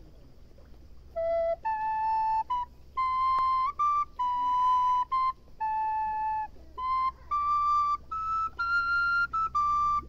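A solo flute-like wind instrument starts about a second in and plays a slow melody of separate held notes, over a low steady rumble.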